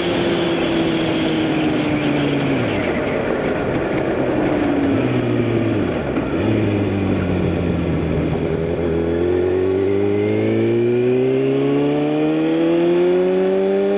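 2009 Kawasaki ZX6R's inline-four engine heard through a Hotbodies MGP Growler slip-on exhaust while riding. The engine note falls as the bike slows over the first few seconds, stays low through the middle, then climbs steadily over the last five seconds as it accelerates.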